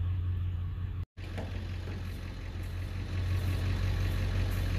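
Diesel pickup engine idling steadily, with a brief total dropout about a second in.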